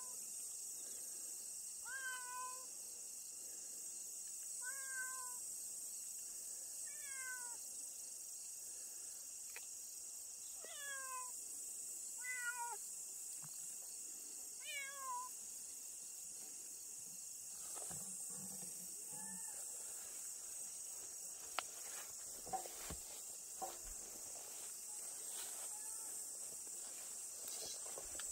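Domestic cat meowing: six short calls, one every two to three seconds, each bending in pitch, then falling silent after about fifteen seconds. A few faint clicks and rustles follow in the grass.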